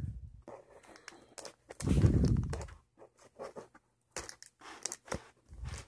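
Handling noise close to the microphone: scattered clicks and taps, with a louder dull bump about two seconds in.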